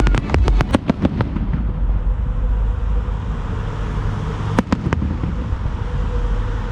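Fireworks display going off: a rapid volley of sharp crackling bangs in the first second or so, then a low rumble with two or three more sharp bangs about four and a half seconds in.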